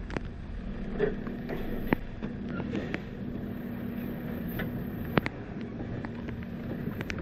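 Mack automated side-loader garbage truck running with a steady engine and hydraulic hum while its lift arm sets an emptied polybin down and retracts, with several sharp clanks of the arm and bin, the loudest about five seconds in. Rain is falling on the wet pavement.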